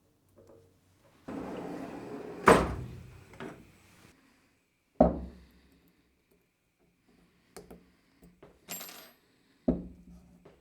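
Hard objects being handled and set down on a workbench: a rustling stretch with a sharp clank in the middle, then two more sharp knocks several seconds apart and a few light clicks.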